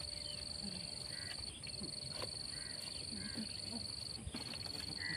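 An insect trilling steadily at a high pitch, breaking off briefly twice.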